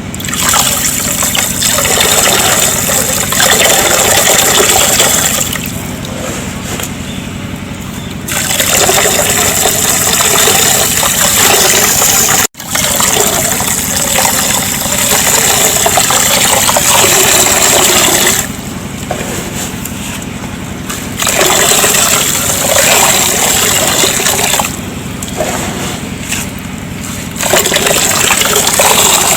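Dry red dust poured in a stream into a tub of dust, a loud steady hiss. It comes in long spells broken by three quieter lulls, with a sudden break about twelve seconds in.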